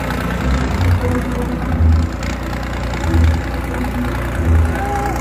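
New Holland tractor's diesel engine running steadily as the tractor spins in tight circles on dirt, with a low pulse that swells about every second and a bit.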